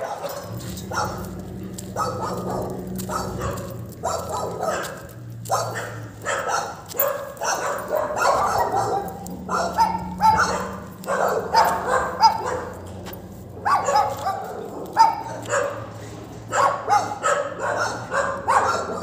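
Dog barking over and over, in short barks that come in irregular runs.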